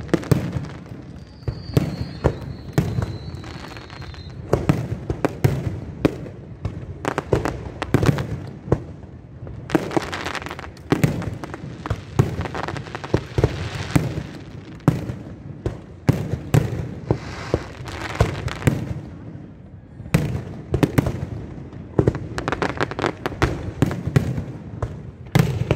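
Fireworks going off in a rapid, continuous string of bangs and crackles, with a thin whistle that falls slightly in pitch for about three seconds near the start.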